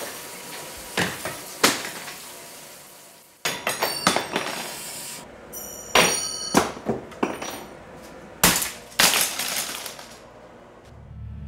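A series of sharp knocks and glassy clinks at irregular intervals, with a quick cluster of them a few seconds in and a brief high ringing around the middle.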